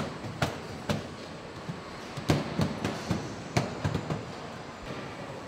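Assembly-line noise around a van's front end: a steady factory hum with a string of sharp clicks and knocks from plastic body parts being pressed and fitted, the loudest about two seconds in.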